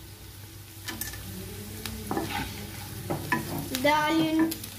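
Sliced onions and green chilies sizzling in hot oil in a nonstick kadai, stirred with a spatula that scrapes and taps against the pan now and then.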